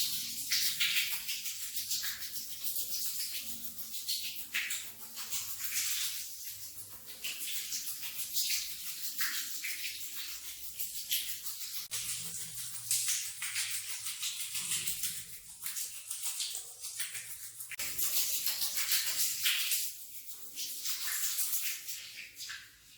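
Stiff brush scrubbing a wet, soapy rug: a continuous bristly swishing and scraping that swells and eases stroke by stroke.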